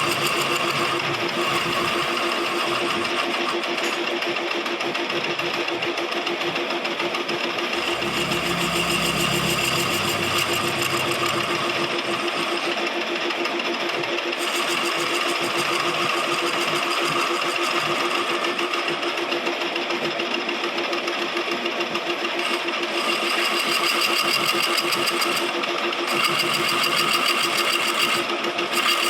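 Lathe running steadily, its motor and drive giving a constant machine hum with several steady tones, and a brief low rumble about eight seconds in.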